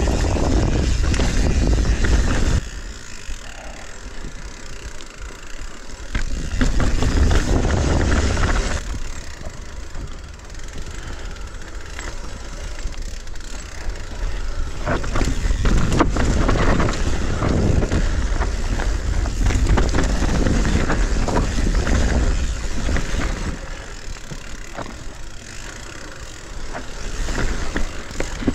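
Mountain bike ridden down a rough, rocky trail: tyres running over dirt and rock and the bike rattling over bumps, with wind rumbling on the microphone in loud surges.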